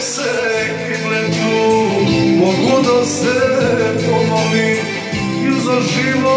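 A man singing into a handheld microphone over instrumental music with guitar.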